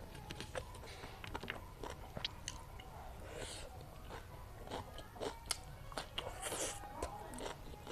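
Close-miked eating: chewing and biting food, with many short wet mouth clicks and occasional crunches.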